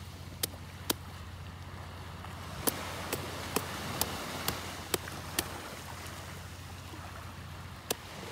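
Machete blade chopping into a green coconut: about ten sharp, short strikes, a run of them roughly twice a second in the middle, over a steady hiss of surf.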